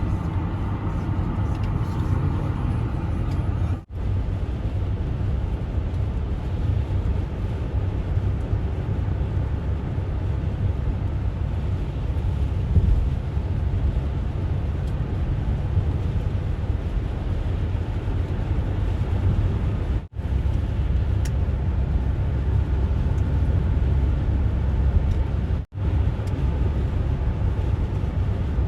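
Steady low road-and-engine rumble of a car driving on a snow-covered highway, with tyre noise over it. The sound drops out for an instant three times.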